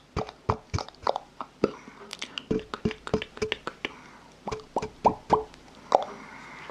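ASMR mouth sounds: an irregular run of sharp, wet mouth clicks and pops, a few each second.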